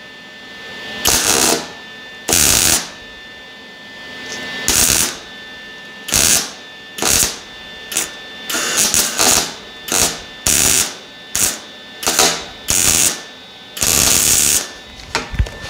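MIG welder stitch-welding a joint in an exhaust pipe one dot at a time: about fifteen short bursts of arc crackle, each under a second, with pauses between. The pauses let the weld cool while a wide gap is bridged, and they get shorter after about eight seconds.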